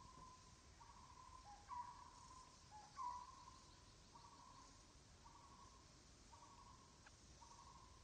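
Faint animal call: a single-pitched note repeated about once a second, with two slightly louder short calls around two and three seconds in.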